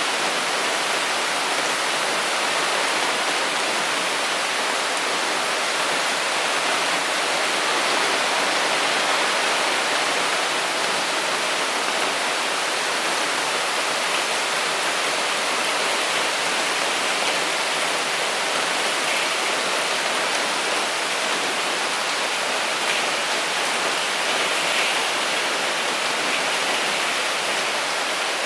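Heavy typhoon rain driven by strong wind, a dense, steady hiss with no single drops or gusts standing out.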